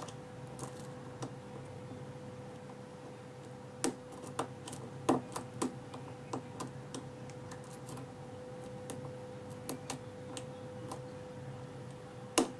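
Short hook lock pick working the pins of a six-pin Ruko oval cylinder under heavy tension: irregular small metallic clicks and taps as the pins are lifted and the drivers set, a few louder than the rest, over a steady faint hum.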